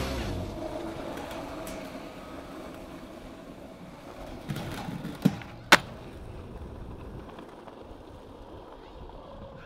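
Skateboard wheels rolling on concrete with a steady low rumble. About halfway through, three sharp knocks come as the board slides off a ledge and slaps down on landing, the last the loudest, and then it rolls on.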